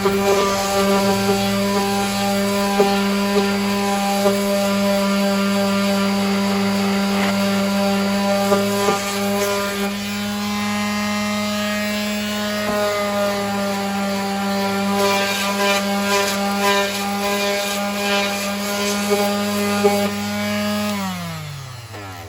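Electric palm sander running steadily with 60-grit paper, scratchy rubbing as it sands down fiberglass-reinforced body filler over its motor hum. Near the end it is switched off and its pitch falls as it winds down.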